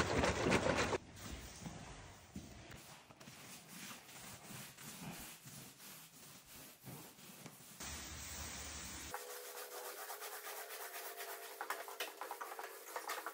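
Paint roller on a long pole rubbing and squishing over oak herringbone parquet as a liquid floor coating is rolled out, with many small clicks. A louder rustle in the first second.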